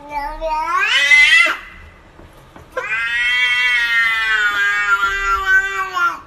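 A domestic cat meowing loudly in two long, drawn-out calls: the first rises in pitch and breaks off about a second and a half in; the second, after a short pause, is held for about three seconds and sags slightly in pitch before stopping.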